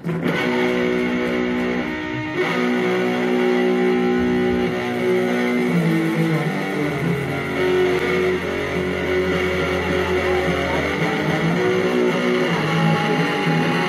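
Live rock band playing, led by electric guitars holding sustained chords over bass guitar, with a deep bass note in the middle of the passage.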